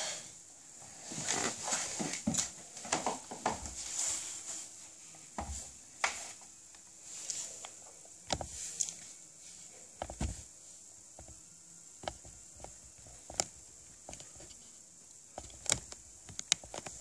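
Faint scattered knocks, clicks and rustles of someone moving about a room and handling things, the busiest in the first few seconds, over a faint steady high-pitched whine.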